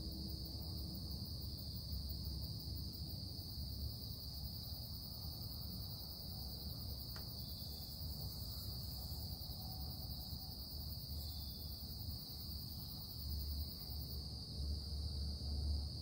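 Industrial production machinery running steadily: a low rumble that swells in the last couple of seconds, under a constant high-pitched whine.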